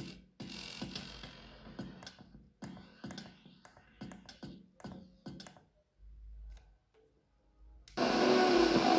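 Electronic music playing from a Sangean HDR-16 radio tuned to an HD Radio digital subchannel. The music stutters into short chopped fragments with gaps, as the digital signal breaks up, then cuts out for about two seconds. Much louder music with guitar comes in abruptly near the end.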